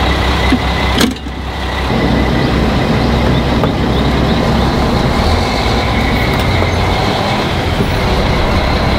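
Diesel fuel gushing from a gas-station pump nozzle into a tractor's fuel tank, a steady loud rushing with a low hum beneath. A sharp click about a second in, then the flow settles into an even rush.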